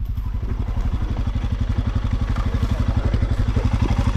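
Motorcycle engine idling close by, with an even, rapid run of low firing pulses.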